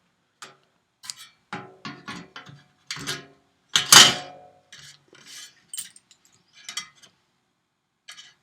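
Irregular metallic clicks and clinks of a cleco being pulled and refitted with cleco pliers in aluminium sheet-metal parts, some strokes ringing briefly. The loudest clack comes about four seconds in.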